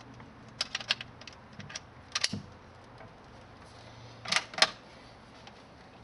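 Metallic clicks from the action of an SDM 98-K .22 LR bolt-action rifle being loaded and worked: a quick cluster of clicks about half a second in, a single click near two seconds, and two sharp clicks just after four seconds as the bolt is cycled.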